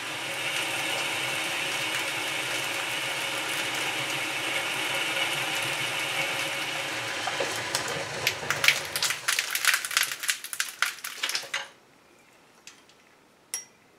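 South Bend 11 metal lathe running steadily with a boring bar cutting inside the bore of a thick steel plate. Near the end it breaks into a rapid run of sharp clicks, then stops suddenly, leaving near quiet with a couple of small clicks.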